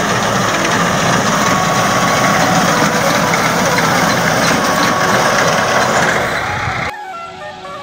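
Tractor engine running with a front-mounted Al-Haseeb reaper binder cutting standing wheat, a loud, dense machine noise. About seven seconds in it cuts off abruptly and gives way to music with steady held tones.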